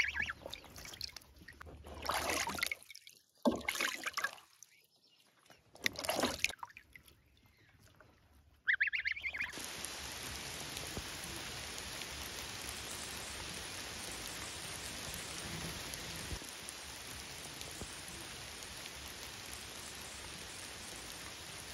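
Steady rain falling, a constant even hiss that starts suddenly about nine seconds in. Before it come a few brief separate sounds with near-silent gaps between them.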